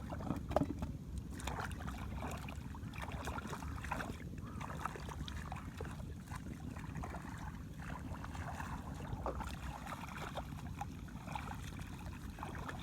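Shallow water splashing and sloshing in irregular bursts, as when someone wades and grabs fish by hand, over a steady low rumble.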